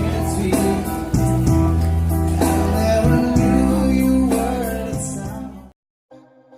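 Intro music with singing and guitar, loud and steady, cutting off abruptly near the end.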